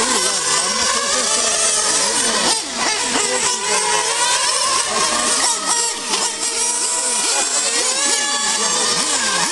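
Several radio-controlled model race cars' small engines running at high pitch. Their notes overlap and keep rising and falling as the cars accelerate and slow through the corners.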